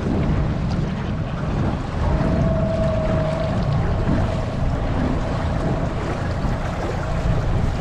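Boat running across choppy lake water, with wind buffeting the microphone. About two seconds in, a steady whine rises out of the rumble and fades within a couple of seconds.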